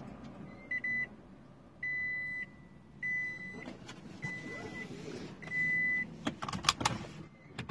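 Car's dashboard warning beeper sounding five steady high beeps, each about half a second long, roughly one a second, with a few sharp clicks near the end.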